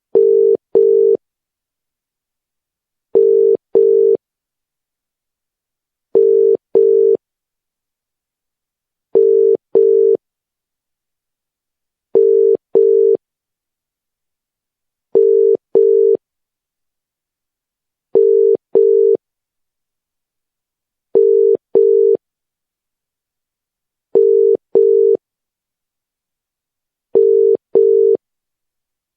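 Telephone ringback tone heard by a caller while the other phone rings: a low steady tone in pairs of short pulses, a double ring every three seconds, ten times over. This on-off pattern is the British-style double-ring calling tone.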